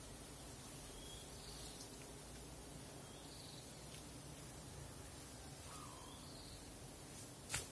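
Faint outdoor ambience: a steady high insect hiss with a few short, faint chirps, broken by one sharp click near the end.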